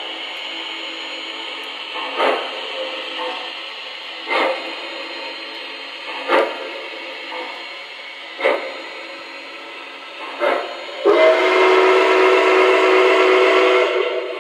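Model train passenger cars rolling by on track with a steady running noise and a sharp click about every two seconds. About eleven seconds in, the model steam locomotive's sound system blows a loud steam whistle, held for about three seconds.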